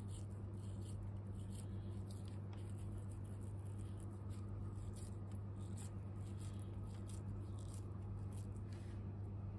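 Hands squeezing and rolling crumbly ground-sesame paste in a stainless steel bowl: soft, irregular crackling and rustling that stops just before the end, over a steady low hum.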